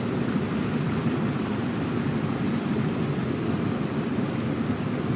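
Small mountain-stream waterfall pouring into a plunge pool: a steady rush of falling water.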